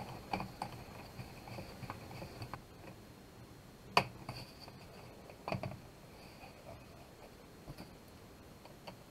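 Faint scattered plastic clicks, with a sharp snap about four seconds in and a couple more about a second and a half later: the snap-fit clips of a Dell G3 laptop's plastic bottom cover unlatching as it is pried off by the hinges.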